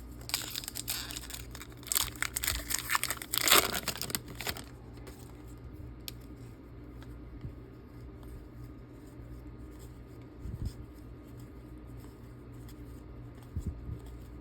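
Foil wrapper of a baseball card pack being torn open and crinkled, for about four and a half seconds. After that only faint handling sounds and a few soft clicks.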